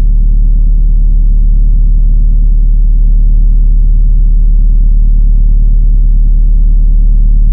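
Loud, steady, deep droning rumble, with everything sitting in the low bass and nothing higher; it holds level without a beat or melody.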